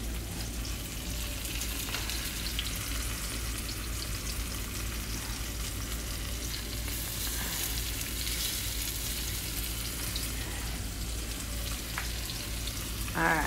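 Breaded pork chops and onion rings frying in hot oil in a skillet: a steady sizzle.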